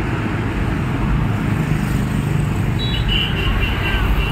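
Highway traffic: vehicles running past on the road with a steady low rumble of engines and tyres.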